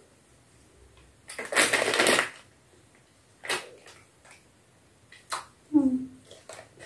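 Plastic snack packet crinkling as it is handled, then a few sharp clicks as scissors are brought to it to cut it open, with a short voice sound near the end.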